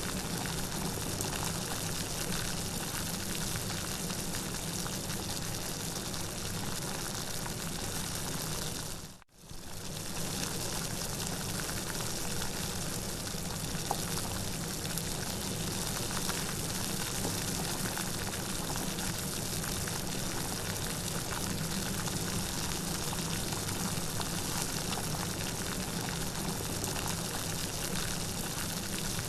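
Steady rain, an even continuous hiss of rainfall. About nine seconds in it fades out almost to silence for a moment and then comes straight back.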